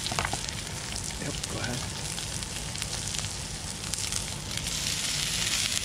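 Breaded walleye fillets sizzling in very hot butter in a skillet, a steady hiss that grows louder near the end, over a low steady rumble.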